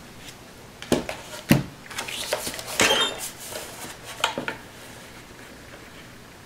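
Plastic paper trimmer being set down on a cutting mat and a card slid into place against its guide: several sharp knocks and clatters of hard plastic over the first four and a half seconds, with softer paper handling between them.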